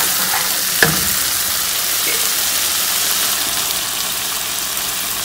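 Masala paste sizzling as it fries in a nonstick pan, stirred with a wooden spoon, with one sharp knock of the spoon against the pan about a second in.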